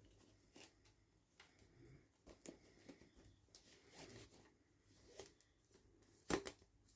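Faint toy-unboxing handling sounds: scattered small clicks and rustles of plastic and packaging, with one louder, sharp double click a little past six seconds in.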